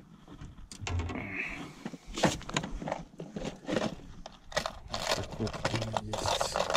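Hard plastic fishing lures and a plastic tackle box clicking and clattering as a hand rummages through the box's compartments, with short scrapes and knocks in quick, irregular succession.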